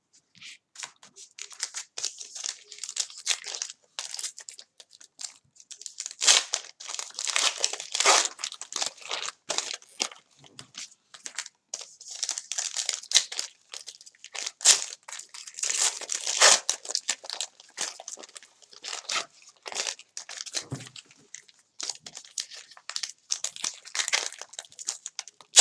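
Plastic foil wrapper of a 2019 Diamond Kings baseball card pack crinkling and tearing as it is handled and pulled open, in irregular bursts of crackling.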